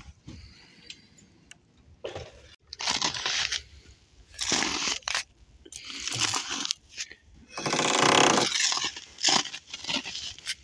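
A power tool run in short bursts, about seven times, the longest and loudest near the end, while working on the wall passage for the chimney pipe.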